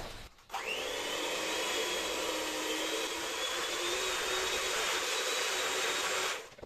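Electric hand mixer running with its beaters in a bowl of gypsum and water, mixing the plaster slurry. It starts about half a second in, spins up to a steady motor whine, and cuts off near the end.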